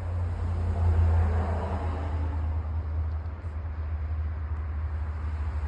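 Car noise: a steady low rumble that swells about a second in and then slowly eases off.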